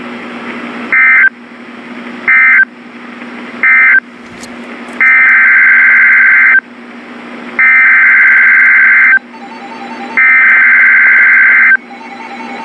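NOAA Weather Radio SAME digital alert bursts, harsh buzzy data screeches over steady receiver hiss. Three short bursts about a second apart (the end-of-message code closing one warning) are followed by three longer bursts of about a second and a half each (the coded header opening the next warning).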